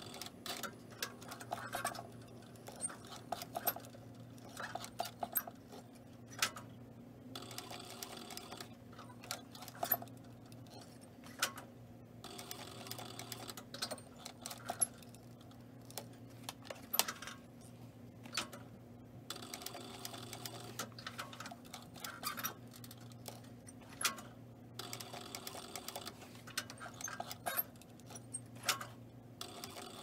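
Industrial cylinder-arm sewing machine stitching a zipper into leather, running in several short runs of a few seconds each with brief pauses between. A steady motor hum carries on underneath, and the needle ticks rapidly and evenly while it runs.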